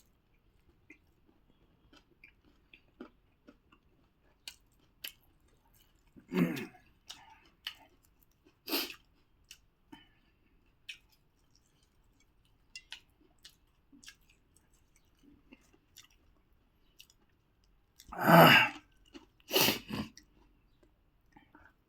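Close-up chewing and eating sounds of puri with pickle and curry: scattered small wet mouth clicks, with a few louder short bursts about six and nine seconds in and a cluster of three near the end.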